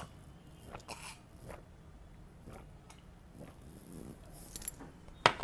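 Faint wet mouth sounds of a man gulping a drink down from a glass, with a sharp knock near the end.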